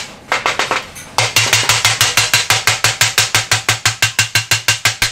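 Rapid, even hammer blows on the seam of a rolled stainless steel sheet cylinder resting over a steel bar, about six or seven a second, the sheet ringing with each strike. After a short pause the blows come softer, then loud and steady from about a second in.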